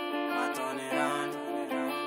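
The instrumental intro of a song: a guitar strumming chords in a steady rhythm.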